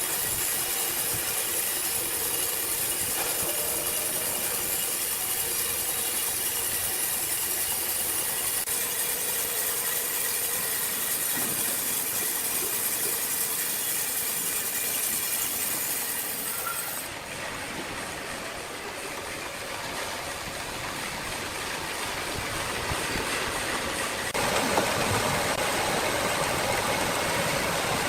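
Sawmill machinery running steadily, a continuous mechanical noise with a hiss, changing abruptly twice, about two-thirds of the way through and again near the end.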